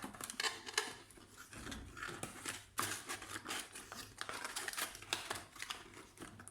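Quick small clicks and scraping from hands and tools working on a laptop's plastic case and parts, in an irregular run.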